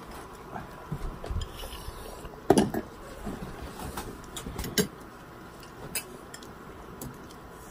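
Eating utensils clicking and tapping against a dish of noodles, in scattered clicks, the loudest about two and a half and about five seconds in.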